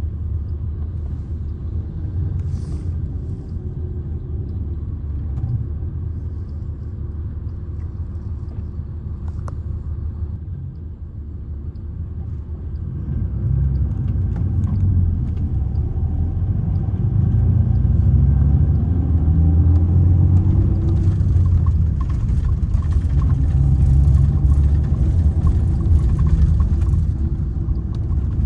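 Mercedes-Benz O-500R coach's diesel engine running under way with a low rumble. About halfway through, the engine note climbs in pitch and grows louder, then holds at the higher level.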